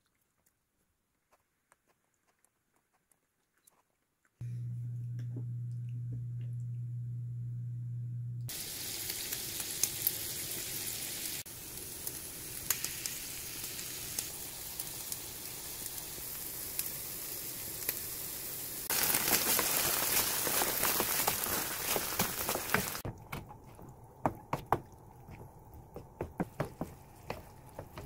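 Food sizzling and crackling in a frying pan, with many small pops, loudest for a few seconds about two-thirds of the way in and thinning to scattered pops near the end. Before it, a steady low hum, and at the start near silence with a few faint clicks.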